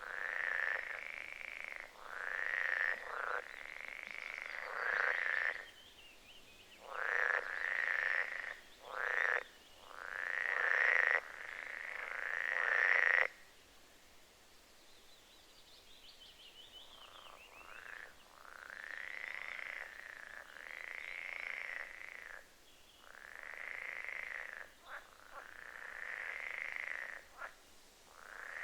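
Frogs calling: a run of loud, buzzy croaks, each about a second long, most coming one after another. About halfway through they stop for a few seconds, leaving fainter, higher-pitched trilling, then start up again.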